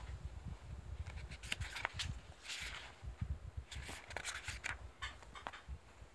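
Paper pages of a paperback comic book being turned and riffled by hand: short papery rustles and flicks at irregular moments, a quick run of them about four seconds in, over low handling rumble.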